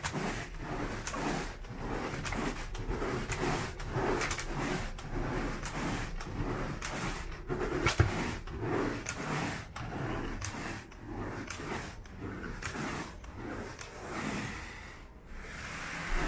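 Carpet groomer rake brushed over the pile of freshly cleaned carpet in repeated short scraping strokes, about two a second, grooming out footprints. A single sharp knock about halfway through.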